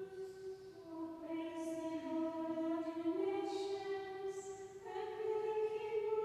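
A women's choir of nuns singing a slow chant in unison, with held notes that step up and down in pitch.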